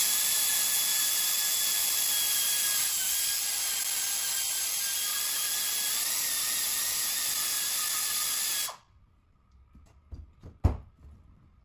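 Hand-held air tool on an air hose running steadily at full speed, a loud hiss with a thin whine in it, worked on the aluminium housing of a TVS supercharger. It cuts off abruptly about nine seconds in, and a single sharp knock follows near the end.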